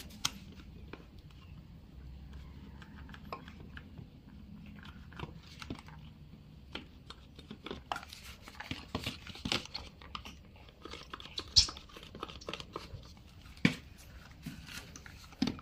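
Faint scraping and light clicking of fingers and a lubricant nozzle working at a seized front-wheel hub bearing as lubricant is put into it, with a few sharper clicks, the loudest about twelve seconds in.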